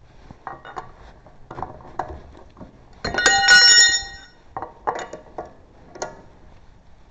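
Metal parts and tools clinking and knocking during a wheel change, with one loud, ringing metallic clatter lasting about a second near the middle.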